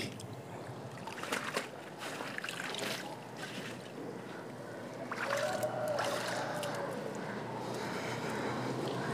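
Water trickling and splashing off a hand net of small fish lifted from a fish-farm tank, with a few scattered light knocks; the water sound swells about five seconds in.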